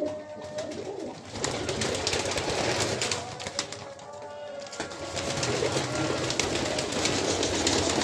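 Domestic pigeons cooing, with stretches of broad rustling noise over the coos.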